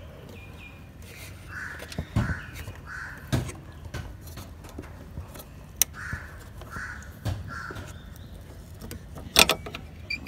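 A crow cawing in the background in two short series of about three caws. Sharp plastic clicks and knocks come from hands working the headlamp bulb's wiring connector and twisting the bulb in its socket, loudest near the end.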